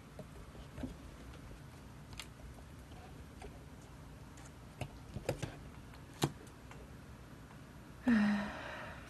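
Scattered light clicks and taps as a cat walks across a tabletop among plastic cups and a metal measuring cup, five or six sharp ticks spread over several seconds. Near the end comes a short breathy voice sound, louder than the taps.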